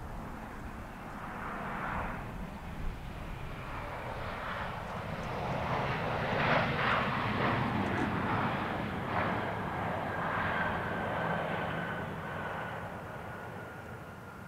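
ATR 42 airliner's twin turboprop engines climbing away: a distant rushing drone that swells to its loudest around the middle. In the second half a steady whine slowly falls in pitch as the plane flies off.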